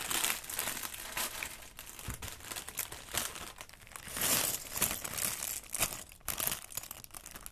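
Plastic LEGO parts bag crinkling as it is handled and opened, with loose LEGO pieces clicking and clattering as they spill out onto the table.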